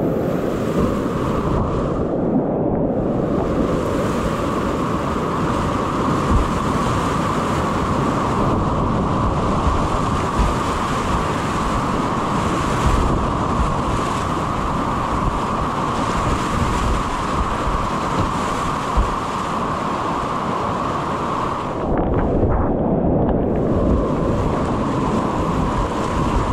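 Grade 3–4 whitewater rapids rushing steadily, with wind buffeting the microphone of a helmet-mounted GoPro.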